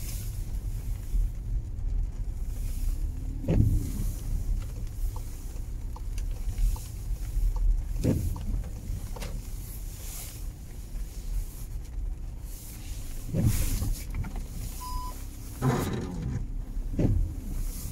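Inside a car's cabin at low speed on a wet road: a steady low engine and tyre rumble, with the windscreen wiper sweeping across the glass every few seconds.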